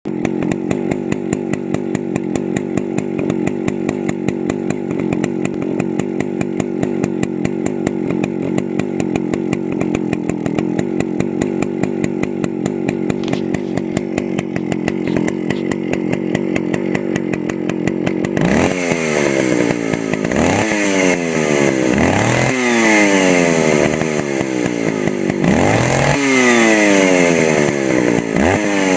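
Vintage Stihl 041 AV two-stroke chainsaw idling steadily with an even, pulsing beat. About two-thirds of the way in it is throttled up, and the engine speed rises and falls several times at high revs.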